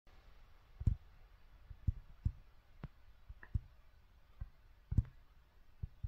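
Great spotted woodpecker pecking at a hanging bird feeder: about nine dull, irregularly spaced knocks.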